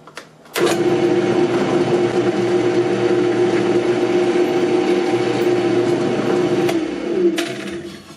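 Drill press switched on about half a second in, its motor running with a steady hum while a 1/16-inch bit drills a small pilot hole in cedar; the motor winds down and fades out near the end.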